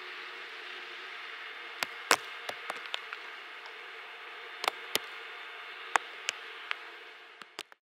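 Steady outdoor background hiss with a faint hum at an empty, snow-covered railway station, broken by a dozen or so scattered sharp ticks and clicks. The sound fades out shortly before the end.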